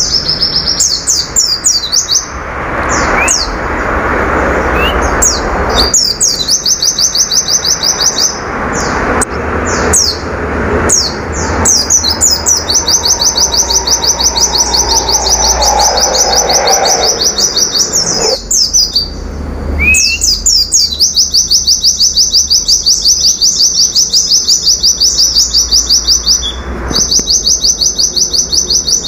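Caged white-eye (pleci) singing in loud, fast trills: long runs of rapid high notes at about ten a second, each run lasting several seconds, broken by short separate chirps.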